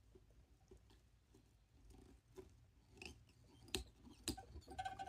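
Faint handling noises of jig tying at a vise: soft ticks and rustles, with two sharper clicks close together about four seconds in.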